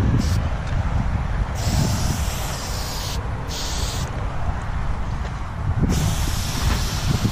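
Aerosol spray-paint can hissing in four bursts as a line is sprayed. The first burst is short, the others last up to about a second and a half, and each cuts off sharply. Wind rumbles on the microphone throughout.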